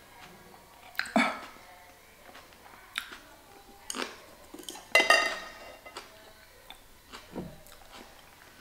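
A utensil clinking against a dish about half a dozen times, separate sharp clicks; the loudest, about five seconds in, rings briefly.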